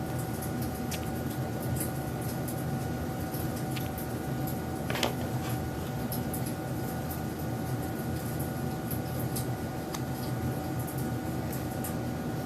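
Steady mechanical hum with a faint high whine, broken by scattered light clicks and one sharper click about five seconds in.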